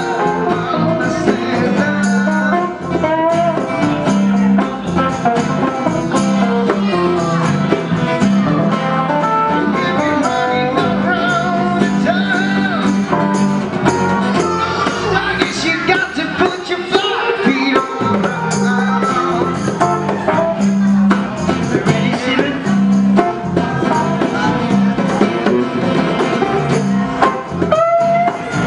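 Live band playing a bluesy jam: acoustic and electric guitars, hand drums and harmonica, with wavering, bending melody lines over a steady groove.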